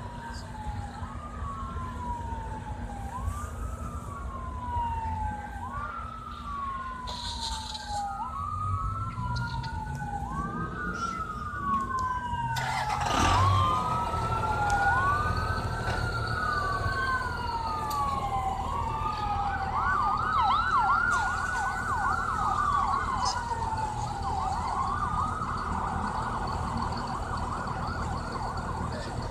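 Emergency-vehicle siren wailing, its pitch rising and falling about once every two seconds. It switches to a fast yelp for a second or two past the middle, then goes back to the slow wail. A sudden sharp crack a little before halfway is the loudest sound, and a low rumble runs under the siren after it.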